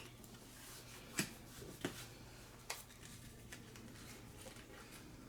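Handling noise from small objects being picked up and set down: three sharp clicks, about a second in, near two seconds and shortly after, over faint rustling.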